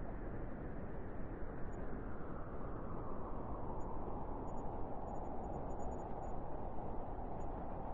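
Soft, steady cold-breeze sound effect: an even hiss of wind without sharp gusts, its tone growing a little brighter over the second half.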